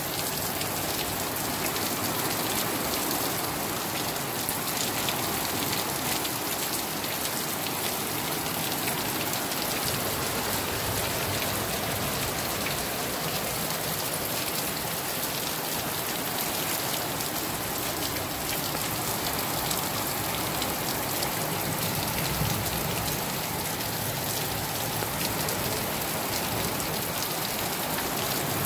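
Heavy tropical rain pouring steadily onto pavement, a dense, even hiss of splashing drops.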